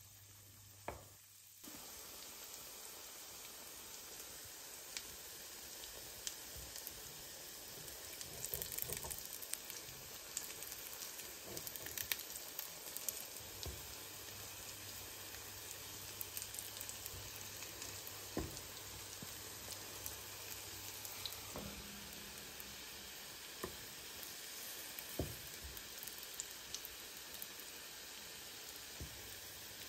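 Food frying in hot oil in a pan, with a steady sizzle and crackle that comes up suddenly about two seconds in. A few sharp clicks break in now and then.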